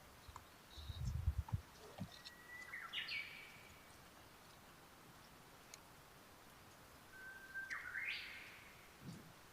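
A bird calling twice, each call a short held whistle that breaks into a harsh, rising note. A few low thumps come about a second in.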